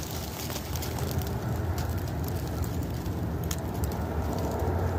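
Wind on the microphone in a steady low rumble, with a couple of faint ticks.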